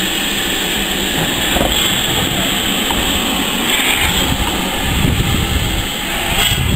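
Steady rushing hiss of steam from the standing LNER B1 4-6-0 steam locomotive 61306 Mayflower, with low, uneven rumbles of wind on the microphone coming in about five seconds in.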